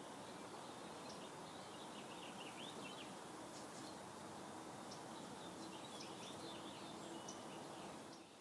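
Steady outdoor background hiss with faint small-bird chirps, in two short runs about two seconds in and again around six seconds.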